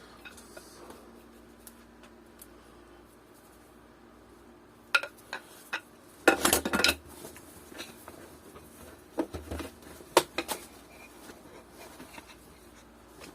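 Small hard objects clinking and clicking in a few short groups, like metal parts and tools being picked up and set down on a workbench.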